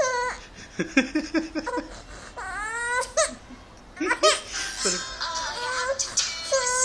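A baby crying in a string of short wails.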